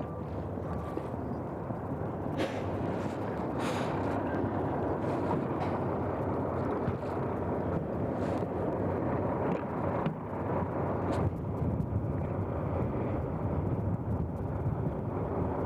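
Fire engine's diesel engine running steadily, with a few short, sharp clicks or knocks at intervals.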